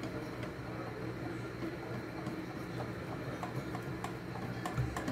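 Wire balloon whisk beating thick cake batter in a glass bowl, its wires tapping the glass in light, fairly regular ticks.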